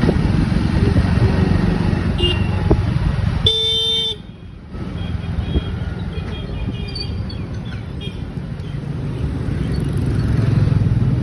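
Wind and road rumble from riding a motorbike or scooter in city traffic. About three and a half seconds in, a vehicle horn sounds for about half a second. Fainter horns follow a few seconds later.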